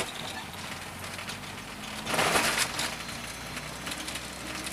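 Volkswagen Voyage's AP engine running steadily, heard from inside the cabin while driving. About two seconds in comes a loud rushing burst of noise lasting just under a second.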